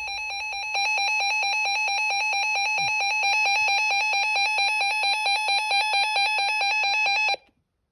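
Emergency Alert System attention tone: a loud, steady electronic alert tone with a rapid warble, cutting off abruptly half a second before the end.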